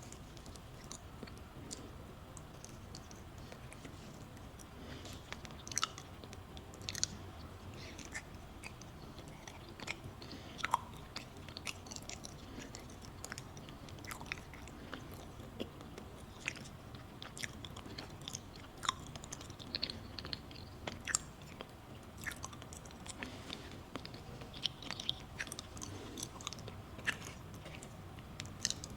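Close-miked eating of a soft matcha pudding crepe: chewing and wet mouth clicks, irregular and scattered.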